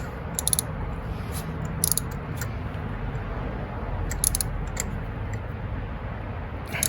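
Ratchet turning a socket in short strokes, giving a few brief clusters of sharp metallic clicks as a freshly installed spark plug is snugged down with a light final tug. A steady low rumble sits underneath.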